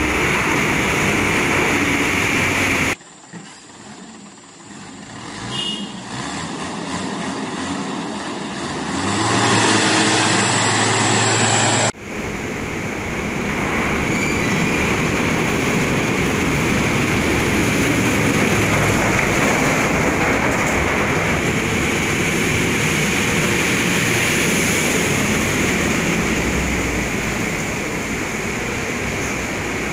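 A truck and cars driving down a steel ramp into a ferry's vehicle deck, engines running over a loud, steady mechanical din. About three seconds in the sound drops sharply and thins out. A low engine hum builds a few seconds later, then the full din returns abruptly.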